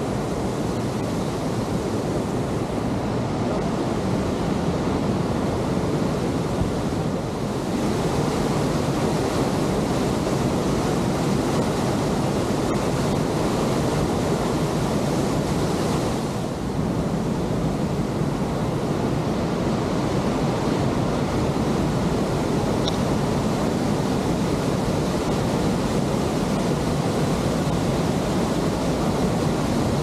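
Steady rush of a river waterfall, white water cascading over rock ledges, with some wind on the microphone.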